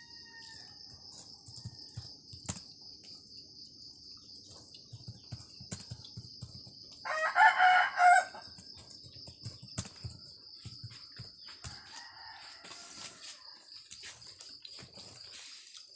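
One loud bird call about a second long, around seven seconds in, and a fainter one a few seconds later, over a steady high-pitched drone.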